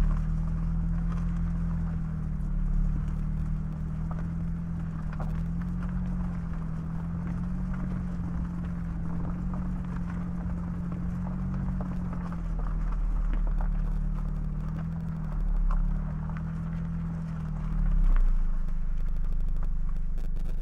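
Car driving on a road: steady low road and wind rumble with a low engine hum that wavers slightly in pitch, and scattered small ticks from the tyres. The hum fades out near the end.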